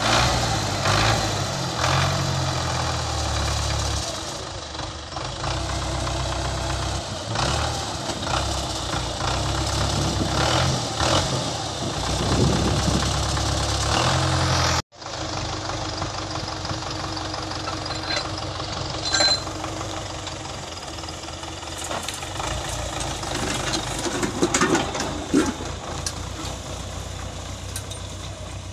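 Farm tractor's diesel engine running throughout, with a knocking, uneven beat in the first half. The sound breaks off for an instant about halfway, then the engine runs on more steadily as the tractor moves off.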